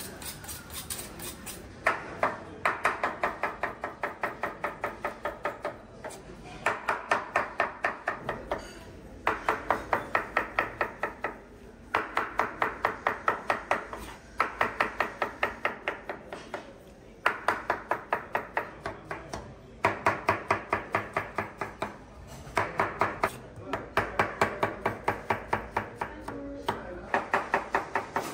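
A knife chopping food on a cutting board in quick, even runs of about four strokes a second. Each run lasts two to three seconds, with short pauses between runs.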